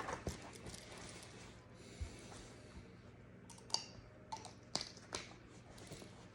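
Light clicks, taps and rubbing of a pistol and cleaning tools being handled, with a brief hiss about two seconds in.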